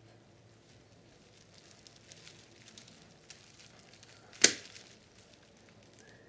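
Small clicks and ticks of tools and plastic parts being handled while a cassette recorder's tape mechanism is taken apart, with one sharp, loud click about four and a half seconds in.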